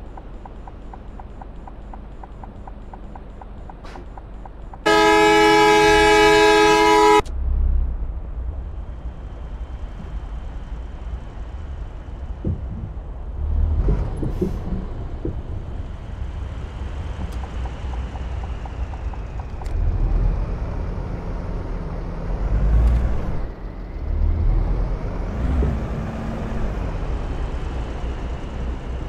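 Vehicle horn blowing one loud, steady blast of about two seconds, about five seconds in, cutting off sharply, over the continuous rumble of vehicles on the road.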